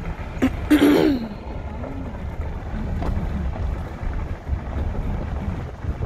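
Wind rumbling on a phone microphone held at the window of a car creeping along a dirt road, a steady low rumble throughout. A short, loud voice-like burst comes about a second in.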